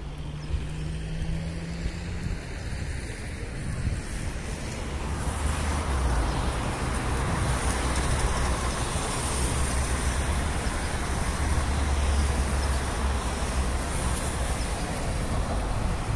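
Street traffic: cars passing on the road as a steady wash of engine and tyre noise, louder from about five seconds in.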